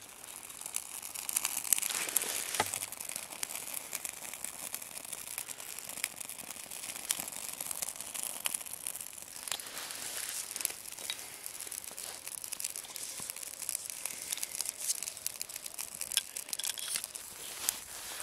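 Birch bark and small damp twigs burning in a small hobo stove, crackling with a steady stream of small irregular snaps and pops as the fire takes hold.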